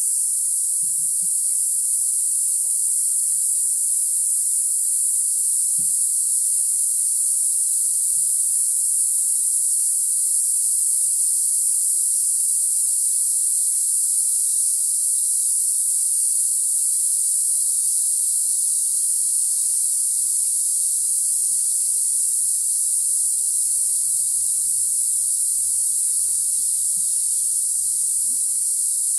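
Dense chorus of jungle insects: a loud, steady, high-pitched buzz that never lets up.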